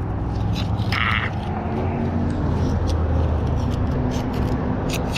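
Steady low rumble, with a few small clicks and a brief high squeak about a second in.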